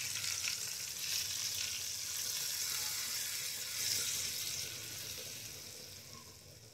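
A hot-oil tadka with asafoetida and slit green chillies is poured onto dal and sizzles as it hits the liquid. The sizzle starts suddenly, holds for a few seconds, then slowly dies away.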